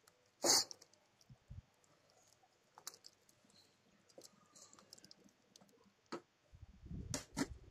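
A ladle clicking and knocking against a metal pot while stirring wet dal, rice and vegetables. There is one sharp click about half a second in, faint scattered ticks after it, and a quick run of knocks near the end.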